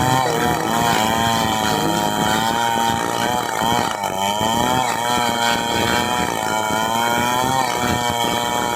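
A woodworking power tool's motor running loud and continuously, its pitch dipping briefly and recovering about three times as if loaded by the cut.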